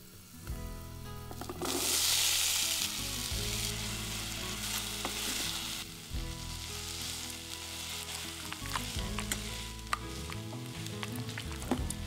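Canned chickpeas hitting hot oil in a small saucepan, sizzling loudly all at once a couple of seconds in. They go on frying while a metal potato masher clicks and scrapes against the pot, crushing them.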